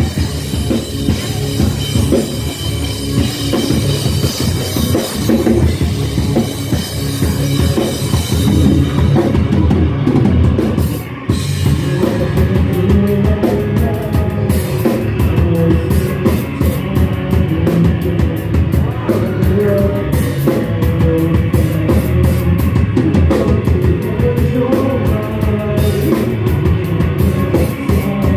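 A rock band playing live, heard from the audience: electric guitars over a driving drum kit, with a brief dip in level about eleven seconds in.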